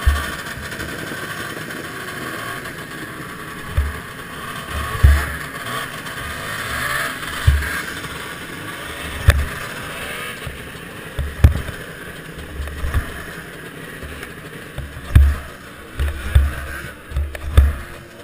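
Snowmobile engines running, a steady drone, with irregular low thumps knocking on the helmet camera's microphone every second or two.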